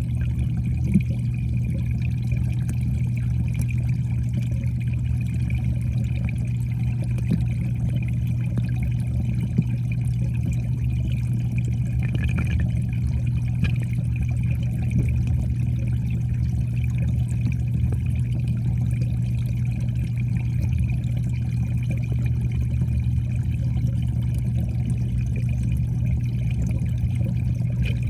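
Steady, muffled water noise picked up underwater in a koi pond, with a constant low hum beneath it.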